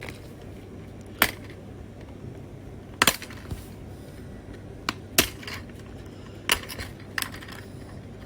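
A plastic waterproof phone case being handled, opened and snapped shut. Separate sharp clicks and taps come every second or so, some in quick pairs, over a low steady background hum.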